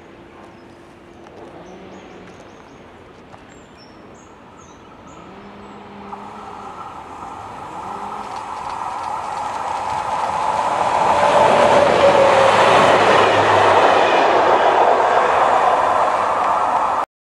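Train approaching and passing on the line, its rumble and rail noise growing steadily louder over several seconds and staying loud as it goes by, then cutting off abruptly near the end.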